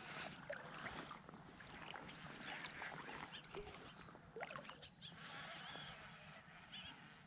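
Faint water sloshing and splashing as float tubes are pushed off and kicked out onto a lake, with faint bird calls.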